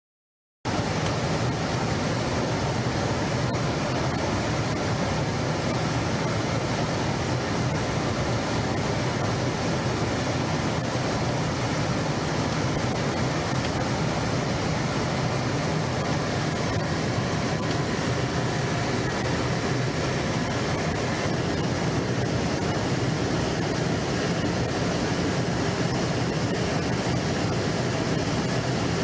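A steady, even roar of noise with a low hum under it, cutting in abruptly under a second in and holding level throughout.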